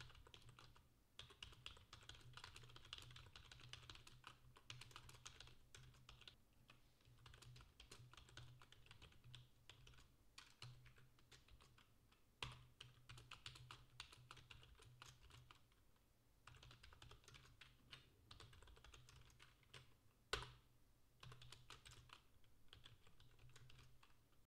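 Computer keyboard typing, faint, in quick runs of key clicks broken by short pauses, with a couple of harder key strikes about 12 and 20 seconds in.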